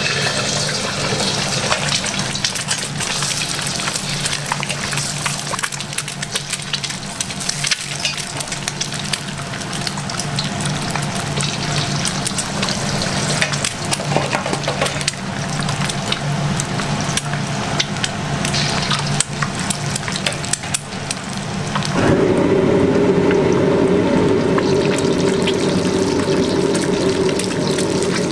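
Eggs frying in hot oil in a wok: a steady sizzle full of sharp crackles and pops over a low hum. About twenty-two seconds in, a louder steady drone sets in and the crackling drops back.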